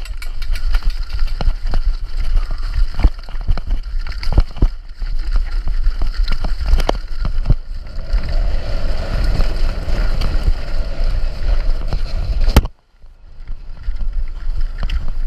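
Downhill mountain bike clattering over rocks, with many sharp knocks and rattles from the frame, suspension and tyres, under heavy wind rumble on the camera microphone. From about 8 s in the knocks thin out into smoother rolling on dirt, and about 12.5 s in the noise cuts out suddenly before a quieter wind rumble returns.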